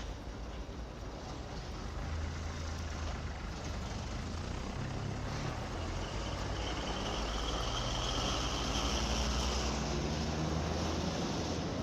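Steady low engine rumble, slowly growing louder, with a faint high whine for a few seconds in the middle.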